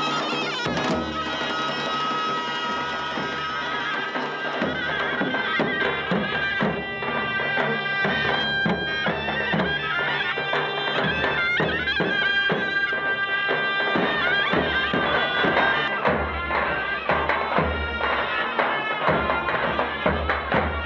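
Traditional Macedonian folk music: a reedy wind instrument plays a melody over a held drone, with a steady drum beat.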